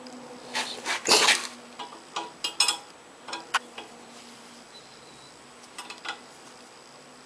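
Several short metallic clinks and clatters in irregular clusters, the loudest about a second in.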